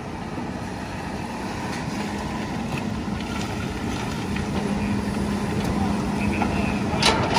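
Heavy diesel machinery running steadily at a low rumble, with a steady hum that comes in about two seconds in and a few sharp clanks near the end.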